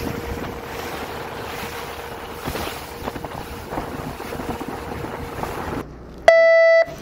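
Wind and sea noise aboard a fishing boat. Near the end a loud, short beep at one steady pitch, about half a second long: the boat's horn signalling the start of fishing at the first spot.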